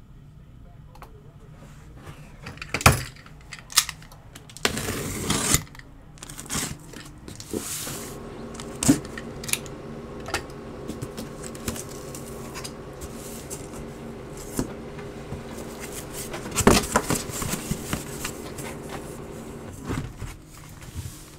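A sealed cardboard shipping case being handled and shifted on a tabletop: scattered knocks and thumps, with a brief scrape of cardboard about five seconds in. A low steady hum runs underneath from about eight seconds in.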